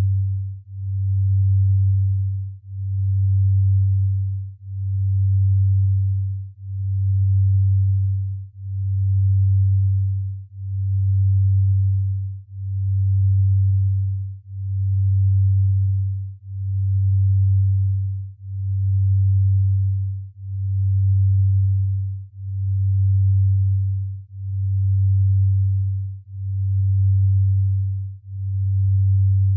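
A low, pure sine tone that swells and fades about once every two seconds. This is a delta-range binaural beat: two tones a fraction of a hertz apart, beating slowly against each other.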